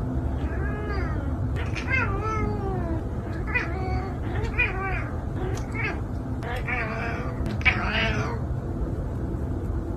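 A domestic cat meowing repeatedly, about seven drawn-out meows that rise and fall in pitch, over a steady low hum.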